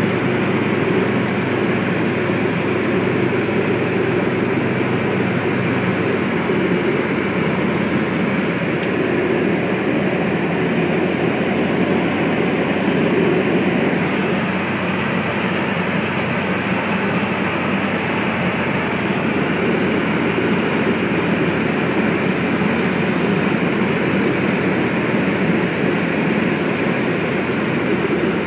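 Light aircraft's propeller engine droning steadily in cruise, heard inside the cabin, its low tone shifting slightly about six seconds in.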